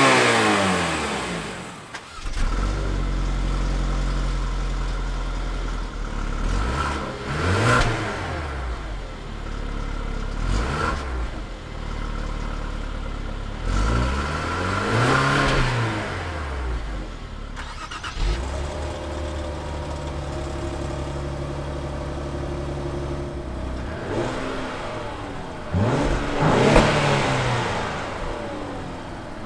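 Car exhausts idling and being revved, one car after another, the sound switching abruptly to a different car about two seconds in and again a little past the middle. The Infiniti Q50 sedans idle steadily, broken by short throttle blips that rise and fall within a second or two: three for the first, one for the next near the end.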